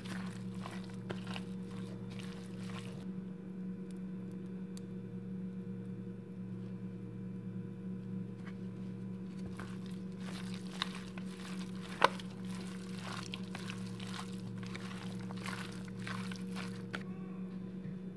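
Gloved hands squishing and turning raw chicken pieces coated in spices in a plastic bowl: soft, wet squelching in two spells, over a steady low hum. A sharp click about twelve seconds in is the loudest sound.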